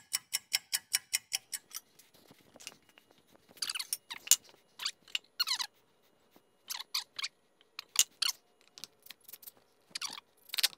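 A clock-ticking sound effect with quick, even ticks, about six a second, for the first two seconds or so. After that come several short bursts of clicking and rattling as screws are started into the wood.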